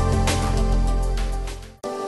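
Background music with a deep bass, fading out near the end and switching suddenly to a lighter track without the bass.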